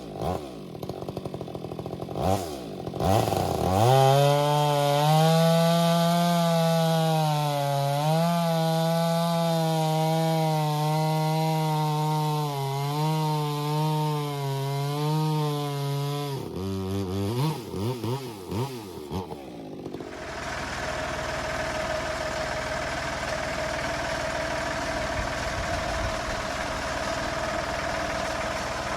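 Chainsaw revving in short blips, then held at full throttle for about twelve seconds as it cuts through a log into firewood rounds, then revving down. About twenty seconds in it gives way abruptly to a different engine running steadily at idle.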